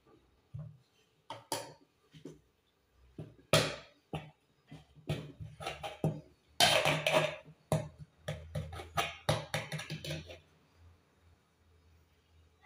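Metal spoon scraping and knocking against a metal bowl in irregular strokes while spreading and pressing steamed couscous into a layer.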